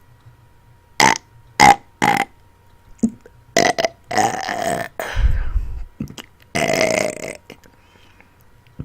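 A woman burping: three short, loud burps in quick succession, then a run of several longer belches.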